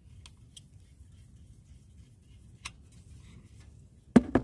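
Faint small clicks of an R-134a refrigerant can being unscrewed from an AC recharge gauge, over a low rumble; a single loud knock about four seconds in.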